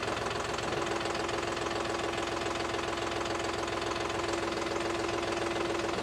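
Tractor engine idling steadily, with a constant mid-pitched whine over it.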